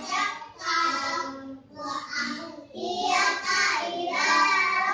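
A child recites a Quran surah from memory in a melodic chant. The voice is sung in phrases, with short breaks for breath about half a second, two seconds and nearly three seconds in.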